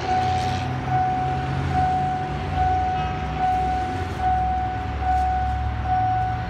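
Railway level-crossing warning alarm sounding a repeated electronic tone, about five tones every four seconds, over a steady low rumble.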